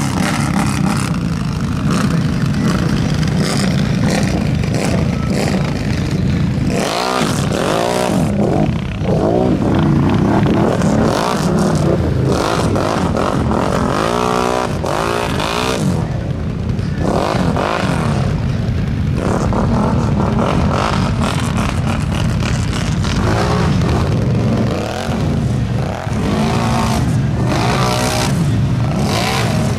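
Can-Am 1000R ATV's V-twin engine revving up and down again and again under load as it churns through deep mud and water.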